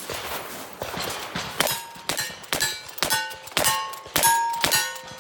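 Steel targets ringing with a metallic clang as they are hit by rapid shots, about seven strikes at roughly two a second, each leaving a short ringing tone.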